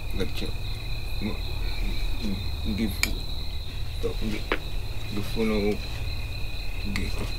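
Crickets trilling steadily as two continuous high tones, over a low rumble, with a few short low-pitched calls and occasional sharp clicks.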